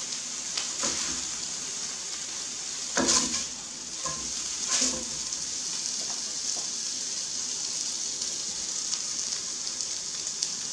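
Venison burgers sizzling in a frying pan: a steady frying hiss. A spatula scrapes and knocks against the pan as the patties are lifted out, about three seconds in and again near five seconds.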